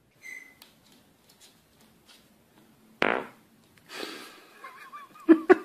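A fart: one short, loud blast about three seconds in. Music with a steady beat starts near the end.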